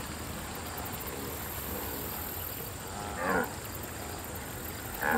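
A wildebeest giving two short calls about two seconds apart, over a steady background hiss.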